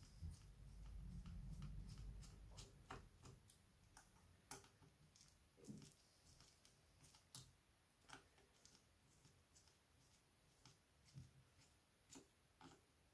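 Near silence with faint, irregular small clicks and ticks: a precision screwdriver backing out the tiny screws of a Samsung Galaxy A72's inner frame, and the screws and tools tapping on the work mat. A soft low rumble of handling over the first two seconds.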